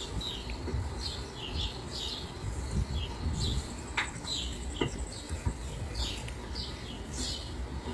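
Small birds chirping over and over, short high calls coming about one or two a second, with one downward-sliding call about four seconds in, over a steady low rumble.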